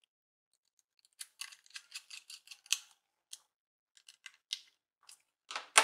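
Small screwdriver working screws that fix a metal side holder onto a 2.5-inch laptop hard disk: a quick, irregular run of light metallic clicks and scrapes starting about a second in, with a sharper click near the end.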